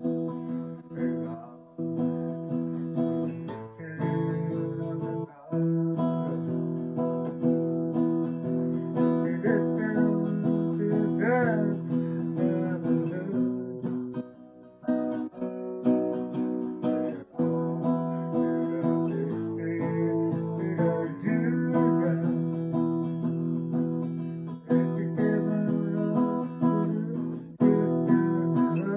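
Acoustic guitar strummed in chords, with a few brief breaks between phrases.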